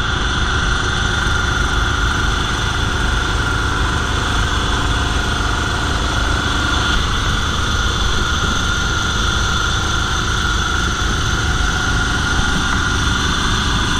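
A boat's engine running steadily at a constant speed, a loud even drone with a fixed whine over a low rumble.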